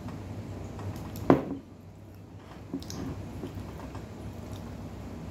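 A drinking glass set down on a wooden table with one sharp knock about a second in. Afterwards come a few faint clicks and crackles of dry, crisp flatbread pieces being handled in a bowl, over a low steady hum.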